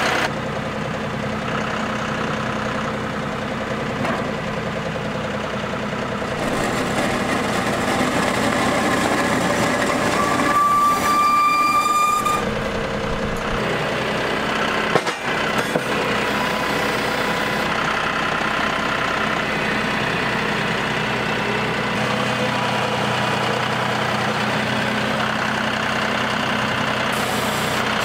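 John Deere utility tractor's diesel engine running steadily while its front loader and pallet forks move a concrete water trough. About ten seconds in, a high steady whine sounds for about two seconds, and a few short knocks follow a few seconds later.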